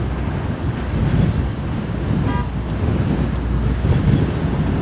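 Lockheed C-130 Hercules's four turboprop engines at takeoff power during the takeoff roll and lift-off: a loud, steady, deep rumble.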